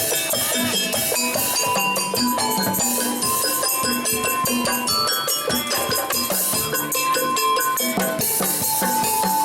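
Reog ensemble music: fast rhythmic drumming and metallic ringing strokes under a long held melody line that steps from note to note.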